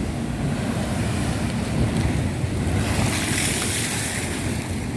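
Rough sea surf breaking and washing up the beach, a wave's rush swelling about three seconds in, with wind buffeting the microphone.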